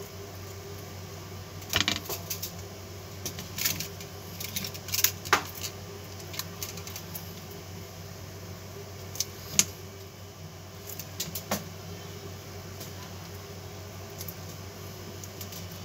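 Copper magnet wire being wound by hand through and around a toroidal transformer core: scattered light metallic clicks and ticks in small clusters as the wire is pulled and laid against the winding, over a steady low hum.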